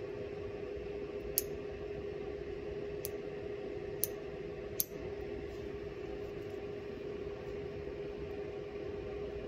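Toenail nippers snipping through toenails: four short, sharp clicks spread over the first five seconds, over a steady background hum.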